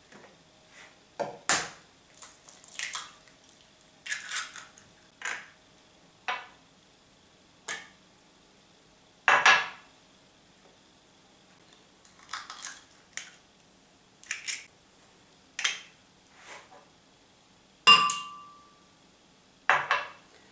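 Eggs being cracked one by one into a glass blender jug: a series of separate sharp taps, knocks and clinks of shell against a hard edge and of glass and crockery. A sharper clink near the end rings briefly.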